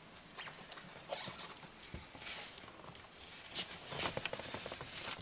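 Hands handling the plastic lower glove box and dash trim of a Range Rover Sport: scattered light clicks and rustles, a little busier near the end.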